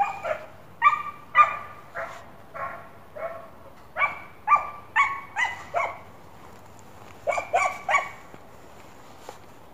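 Hare-hunting hound baying in a run of short barks, a few a second in loose bunches, giving tongue on a hare's scent trail. The barking stops near the end.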